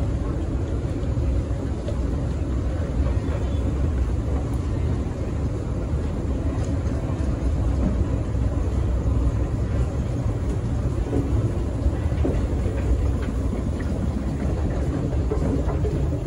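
Steady low rumble from a running escalator in an underground metro station, with the station's hum mixed in.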